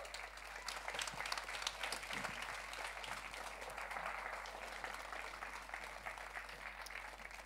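Audience applauding, a steady patter of many hands clapping that eases off a little near the end.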